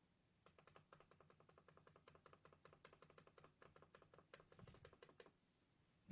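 Fast typing on the built-in keyboard of a GIGABYTE Phantasus P15F V3 laptop: a quick, even run of faint key clicks, stopping about five seconds in.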